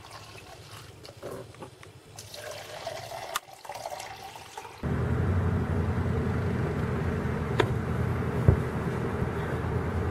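Water poured from one plastic cup into another, with a faint pitch rising as the cup fills. About five seconds in, it gives way abruptly to a loud, steady rush of wind on the microphone, with a thump in it.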